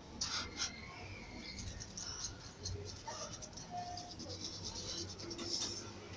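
Vocal percussion made with the mouth: beatboxing-style hisses, breathy puffs and fast faint clicks, with a couple of short hummed tones near the middle.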